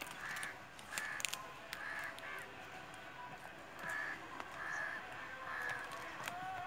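Crows cawing nearby, about eight short calls at uneven intervals, over light crackling of a banana leaf being pressed into a hollowed pumpkin.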